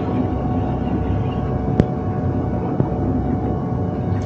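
Charter boat engine running steadily with a low hum. There is a single sharp click about two seconds in.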